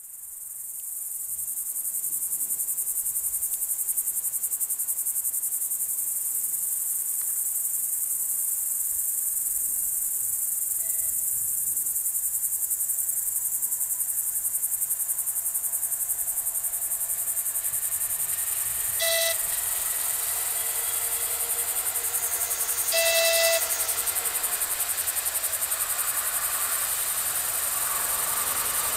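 Crickets chirring steadily and high-pitched at dusk. Partway through, two short horn blasts from an approaching diesel train, the second longer and louder, and near the end the train's rumble starts to build.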